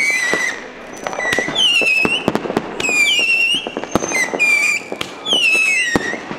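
Aerial fireworks shooting up whistling tails about once a second. Each shot gives a high whistle that falls in pitch and then holds, with sharp pops and cracks between the shots.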